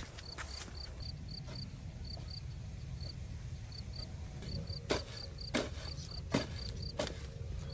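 Steady high-pitched chirping, about four to five short chirps a second with brief pauses, over a low rumble, with a few sharp knocks in the second half.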